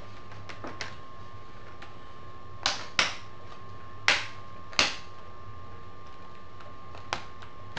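Sharp plastic clicks and taps as a laptop's plastic hinge covers are worked at by hand: four distinct clicks in the middle of the stretch and a softer one later, over a steady faint hum.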